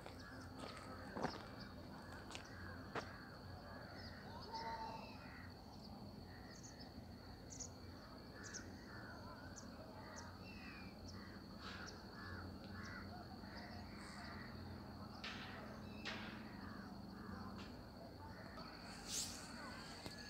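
Faint outdoor ambience of birds calling, with crows cawing among them, over a thin steady high tone and a low hum.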